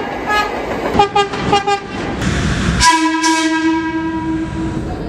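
Train horn: a quick run of short toots, then a brief rush of noise and one long, steady blast about three seconds in.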